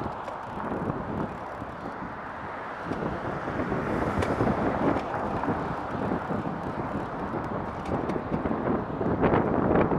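Wind rushing over the microphone of a moving bicycle, with the noise of heavy road traffic around it, growing louder about three seconds in.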